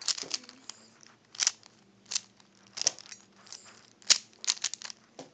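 Rubik's cube layers being turned by hand: a string of sharp plastic clicks and clacks at irregular intervals, about a dozen in all.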